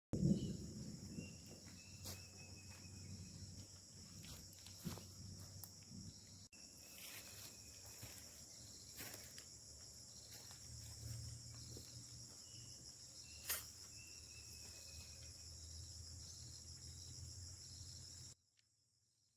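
Forest ambience: insects chirring steadily and high over a faint, steady low drone of a distant palm oil mill's machinery, with a thump at the start and a few sharp clicks scattered through. The sound cuts off suddenly near the end.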